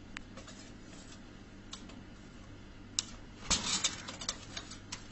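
Metal tape measure worked inside a drinks vending machine, clicking and rattling against the metal product spirals. A few separate clicks, then from about three and a half seconds in a louder, dense clattering.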